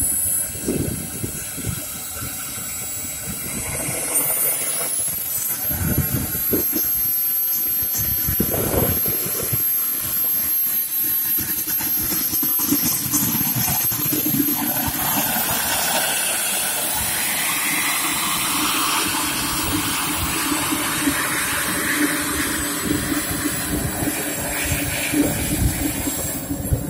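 A model jet turbine, the Evojet 220 in a 1:3.3-scale Fiat G91, runs at low taxi power. It gives a steady hissing rush with a thin high whine that steps up in pitch about four seconds in and shifts again around fifteen seconds.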